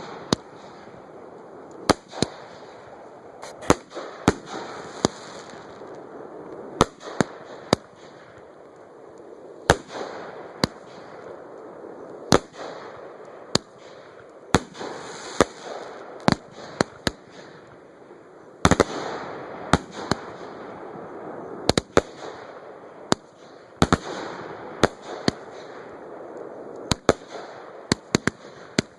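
Fireworks display heard from close to the launch site: a string of sharp bangs at uneven intervals, some in quick pairs and clusters, over a steady noisy haze, which grows louder about two-thirds of the way through.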